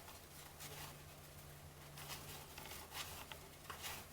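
Faint rustling and light clicks of cardboard trading cards being flipped through by hand, over a steady low hum.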